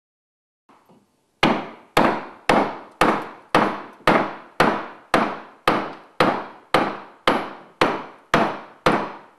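Mallet blows driving a carving gouge into a log. After one faint tap, a steady run of sharp strikes begins about a second and a half in, about two a second, each dying away quickly.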